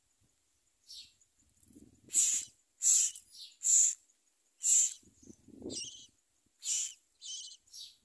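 Common myna nestlings begging: a run of about ten short, high-pitched, raspy calls while the parent feeds them at the nest.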